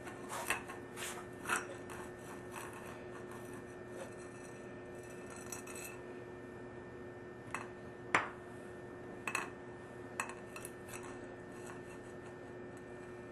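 Scattered light metallic clinks and knocks as a copper pipe is handled and set against a concrete floor, over a faint steady hum.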